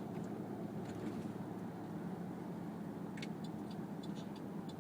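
Steady low background rumble with a few faint ticks about three seconds in.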